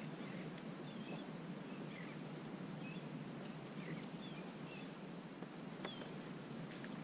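Faint open-air background with scattered short, high bird chirps and one brief click about six seconds in.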